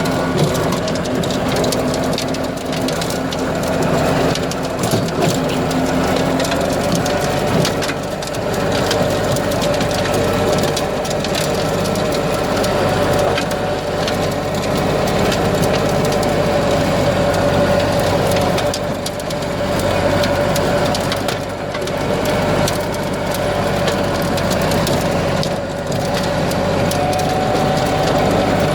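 Tractor engine running steadily while a tractor-mounted ridge-forming and film-mulching implement works the soil, with a constant crackling, crunching noise over a steady engine tone.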